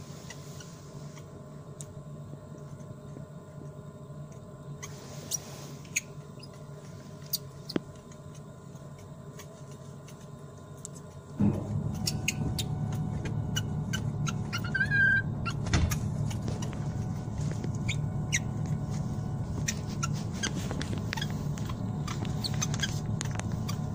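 Steady ventilation hum that grows louder about halfway through, with scattered light clicks and knocks and one short high call from an infant long-tailed macaque about two-thirds of the way in.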